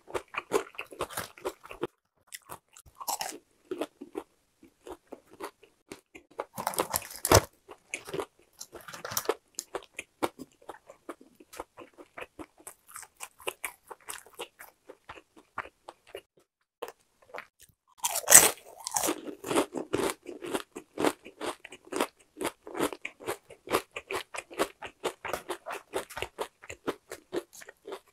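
Crunching and chewing of crispy-coated boneless fried chicken. A few loud crunching bites stand out, the loudest past the middle, between stretches of quicker, softer chewing crunches.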